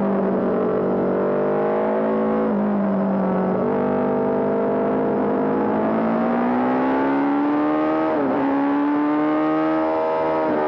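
Honda CB750 Four racing motorcycle's air-cooled inline-four engine running hard under race load: the revs fall at first, then climb, breaking sharply at gear changes about eight seconds in and again near the end.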